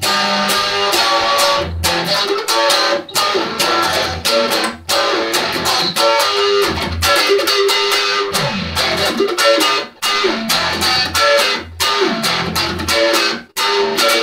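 Stratocaster-style electric guitar playing an instrumental break in a blues-rock song: changing notes over low bass notes, broken by several short gaps.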